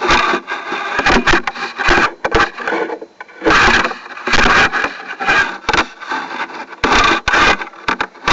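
Irregular rubbing and scraping in uneven strokes, some short and some lasting about half a second.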